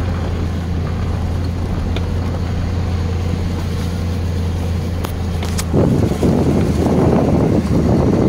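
2000 GMC Sonoma pickup's engine running steadily with a low hum as the truck drives across a field. About six seconds in, a louder rough rushing noise joins it.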